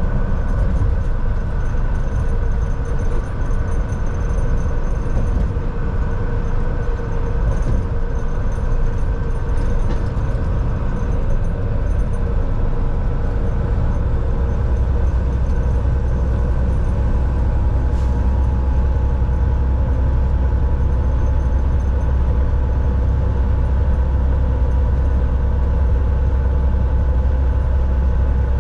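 Semi-truck engine and road noise heard from inside the cab of a Volvo VNL 760: a steady deep drone with a few steady tones above it. About halfway through, the deep drone becomes steadier and louder.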